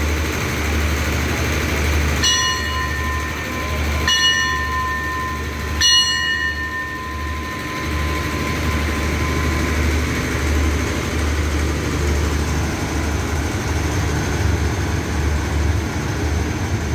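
A station bell struck three times, about two seconds apart, each strike ringing on and fading, over the steady low rumble of the standing diesel express train.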